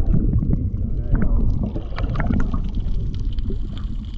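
Muffled underwater sound picked up by an action camera held below the surface: a steady low rumble of moving water with scattered clicks and crackles.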